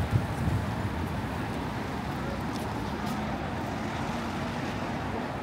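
Steady road traffic noise of a city street, with a heavier low rumble in the first moment.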